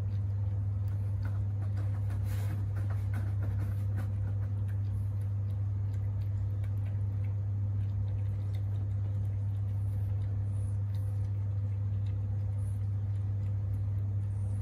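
A cat eating wet food from a bowl: faint, scattered licking and chewing clicks, busiest in the first few seconds, over a louder steady low hum.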